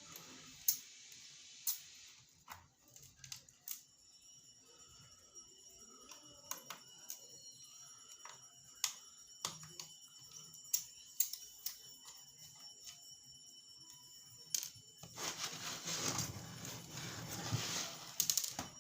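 Small screws being undone from a laptop's SSD mount: sharp clicks and taps of a screwdriver and small metal parts against the laptop case, scattered and irregular. About three seconds before the end comes a few seconds of continuous scraping and rustling as the laptop and drive are handled.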